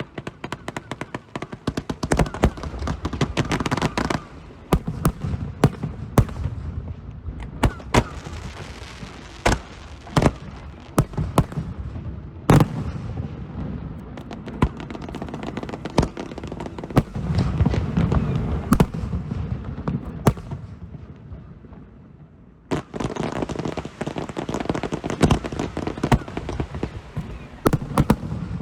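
Aerial fireworks display: continuous crackling with many sharp bangs of bursting shells. There is a brief lull about 22 seconds in, then a dense crackling barrage picks up again.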